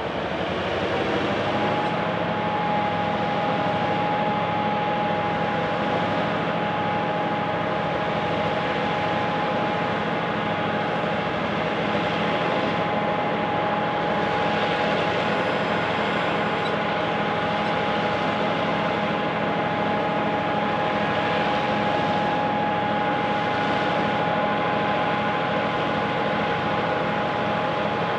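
EMD 567 diesel locomotive engines running steadily as they work to restart a stalled train on a steep grade, with a whine that rises over the first second or two and then holds steady.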